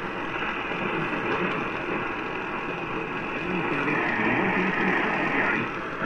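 AM radio receiver tuned to 820 kHz: a steady hiss of static with a faint broadcast voice underneath, weak reception.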